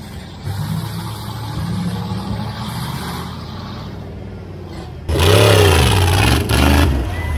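Off-road mud truck engine running steadily as it works through a mud hole. About five seconds in, a much louder engine revs hard several times in quick succession, each rev rising and falling in pitch.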